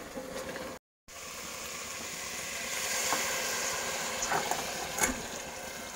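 Food sizzling in a frying pan, a steady hiss with a few light clicks in the second half and a brief gap of silence about a second in.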